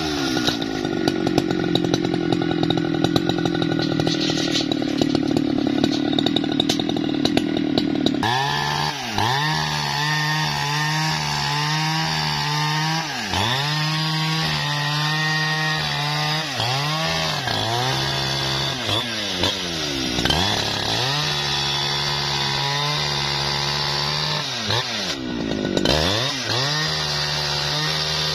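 Jonsered two-stroke chainsaw cutting through a log. It runs at a high, steady full-throttle pitch for about the first eight seconds. After that its engine speed keeps dipping and recovering, sagging under the load of the cut and climbing back again and again.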